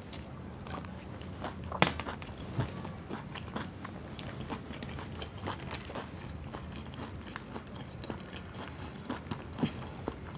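Close-up eating of battered fried chilli fritters (mirchi pakoda): irregular bites and chewing, with one sharper, louder bite about two seconds in, over a low steady hum.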